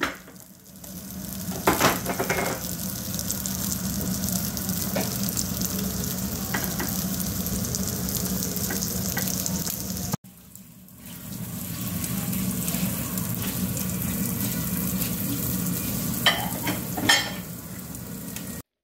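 Slices of ham sizzling in oil in a rectangular cast-iron pan: a steady frying hiss that breaks off briefly about halfway and comes back. A few sharp clicks sound over it, the loudest two near the end.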